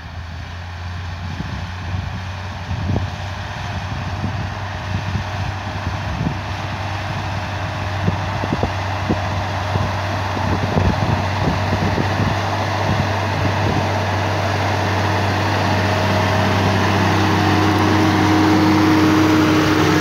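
Massey Ferguson 6180 tractor's diesel engine working under load as it pulls a plough through the field, growing steadily louder as it comes closer. Wind buffets the microphone in gusts through the first half.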